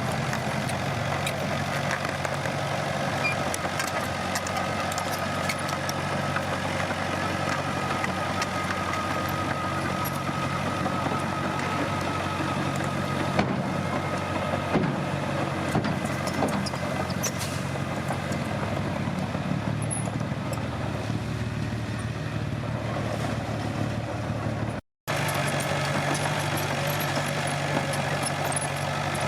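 Komatsu D21P bulldozer's diesel engine running steadily, with scattered clicks and knocks over it. The sound breaks off for an instant near the end, then resumes.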